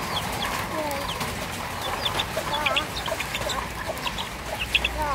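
Chickens clucking, with many short, high-pitched cheeps scattered throughout and a quick run of repeated clucks about halfway through.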